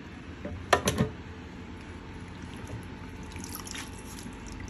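Soft, juicy roasted tomatoes dropped from tongs into an empty plastic blender jar: two wet plops about a second in, followed by faint dripping.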